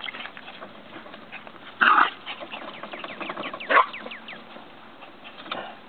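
Yorkshire terrier barking twice, two sharp yaps about two seconds apart, with a few faint high yips after the second.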